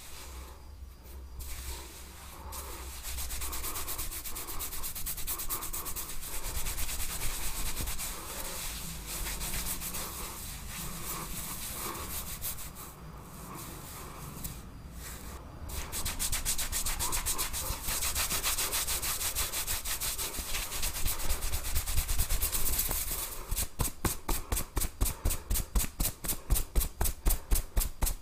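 Hands rubbing and scrubbing through hair on a scalp during a head massage, a scratchy friction that swells and eases. Near the end it turns into quick, even strokes, about three to four a second.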